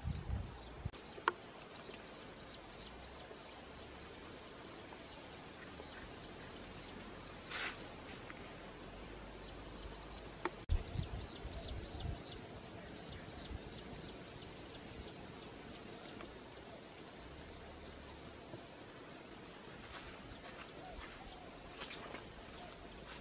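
Quiet outdoor woodland ambience with faint bird chirps and insects, broken by a few sharp knocks and rustles, the loudest about a second in and again around eleven seconds in.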